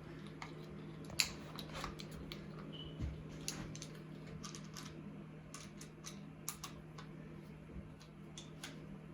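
Faint, scattered clicks and light taps of a bicycle speedometer's clamp and screw being handled and fitted to the handlebar, over a steady low hum.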